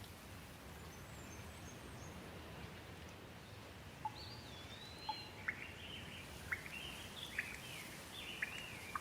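Faint steady rain hiss, with a bird chirping from about four seconds in: a string of short whistled notes that rise and fall, punctuated by sharp clicks.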